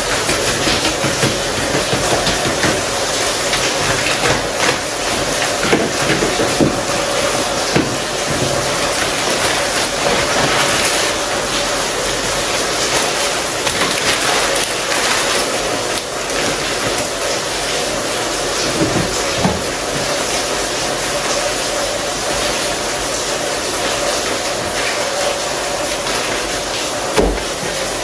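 Plastic food containers, lids and grocery packets being handled on a kitchen counter, with a few sharp knocks as items are set down, over a loud steady hiss.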